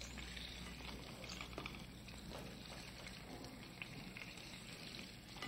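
Lobster pieces sizzling in hot olive oil as they sauté: a faint, steady frying hiss with scattered small pops.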